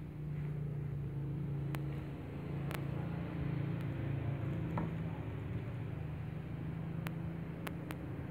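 A steady low mechanical hum, with a few faint sharp clicks scattered through it.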